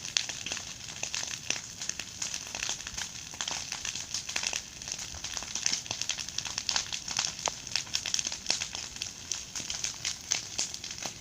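A large bonfire crackling: a dense, irregular stream of sharp snaps.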